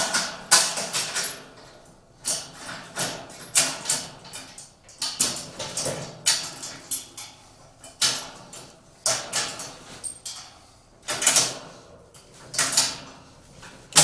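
Irregular clinks and knocks of metal: bolts, washers and the steel frame of a cargo carrier being handled and fitted by hand, a sharp hit about every second.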